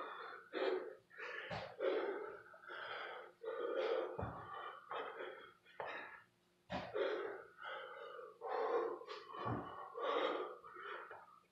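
Heavy, rapid breathing and gasps of a man doing burpees, with a dull thump about every two and a half seconds, four in all, as he drops to the floor or lands each rep.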